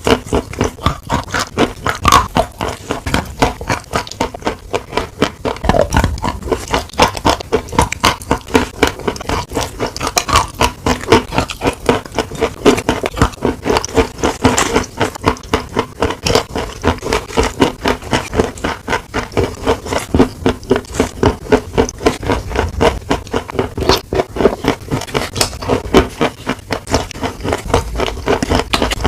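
A person chewing crunchy food close to the microphone: a fast, regular run of crisp crunches.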